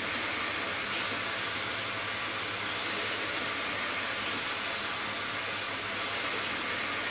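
Steady rushing hiss with a low hum from the vacuum cleaner (Hoover) that drives the wooden model beam engine, running on without change while the engine turns over.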